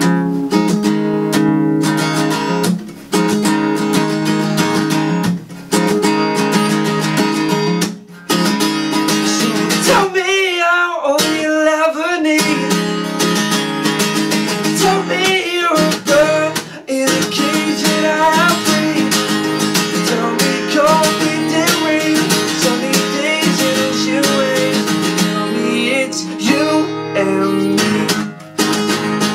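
Acoustic guitar strummed with a man singing over it. About ten seconds in, the guitar stops for a couple of seconds while the voice carries on alone, then the strumming comes back.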